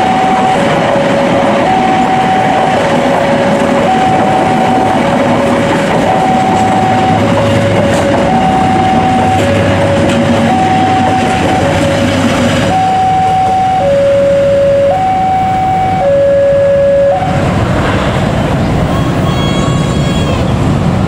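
Railway level-crossing warning alarm sounding two alternating electronic tones, high then low, each about half a second long, over the continuous rumble and clatter of passenger coaches passing. The alarm stops suddenly about 17 seconds in, and the train noise carries on.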